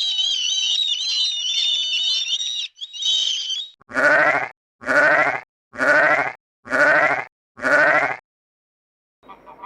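A high, wavering call for nearly four seconds, then five bleats about a second apart, each short with a quavering pitch.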